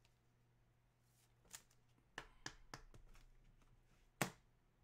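Quiet handling of trading cards: a few faint clicks and rustles, then one sharper tap about four seconds in.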